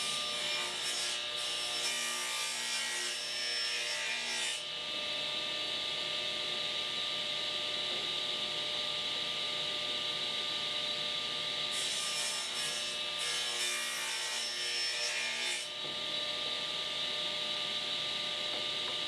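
Table saw running steadily while its blade cuts shallow spline slots across the corner of a small mitered wooden box pushed through on a jig. The cutting sound is heard in the first few seconds and again from about twelve to fifteen seconds in.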